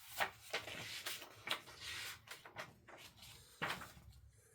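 Handling of a picture book: paper rustling and a few soft knocks and clicks as pages are turned.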